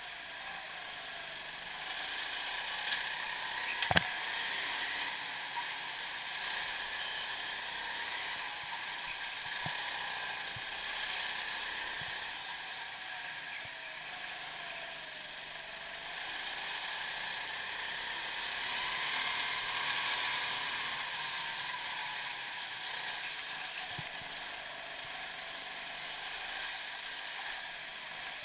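Go-kart running at track speed, its engine note rising and falling through the corners, with a sharp knock about four seconds in.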